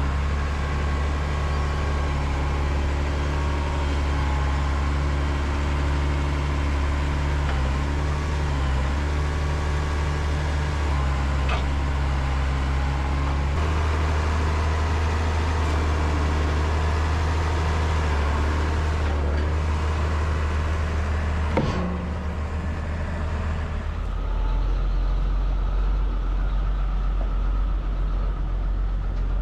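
Tractor engine running steadily as its front-end loader sets round hay bales onto a flatbed trailer. Its pitch shifts to a new steady note about halfway through and again near the end, and there is a single knock a few seconds before the second shift.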